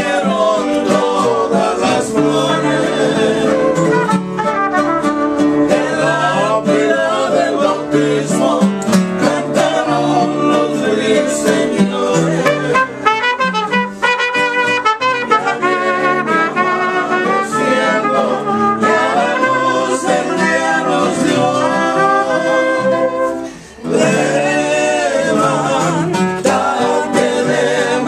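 Mariachi-style music with trumpets, guitars and singing, dropping out briefly about two-thirds through before carrying on.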